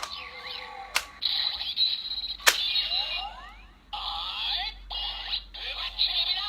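Kamen Rider Ghost toy transformation belt (Ghost Driver) playing its electronic standby sound effects, with gliding chirps and beeping tones. Two sharp plastic clicks come about a second in and about two and a half seconds in.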